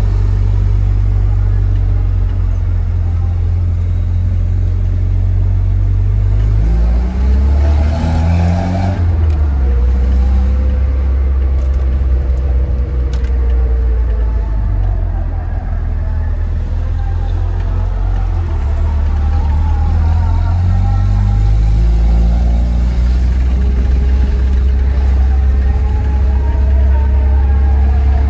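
Tofaş Şahin with an SS Magnum aftermarket exhaust, heard from inside the cabin while driving: a loud, deep exhaust drone, with the engine pitch climbing about seven seconds in and again about twenty seconds in as the car accelerates.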